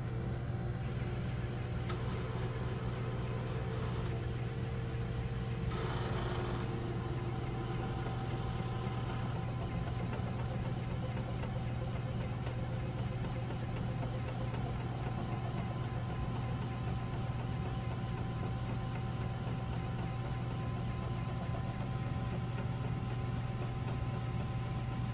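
Eco Auto Smart machine running with a steady low drone and a knocking, clanking rattle; the loud clanking appeared after its stage-3 pad was swapped for a new one. A short burst of noise comes about six seconds in.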